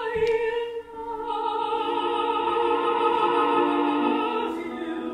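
Female operatic voice singing with piano accompaniment, rising into a long high note held with vibrato, then moving to a lower note near the end.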